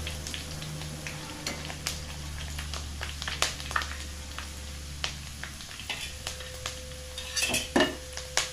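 Ginger, garlic and dried red chillies sizzling in mustard oil in a metal kadai while a steel spoon stirs and scrapes through them, with scattered clinks of spoon on the pan. A quick cluster of louder clanks comes near the end.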